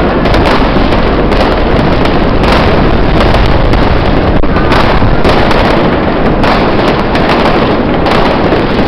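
Many fireworks and firecrackers going off at once: a loud, dense, unbroken barrage of crackling and bangs overlapping with no pause.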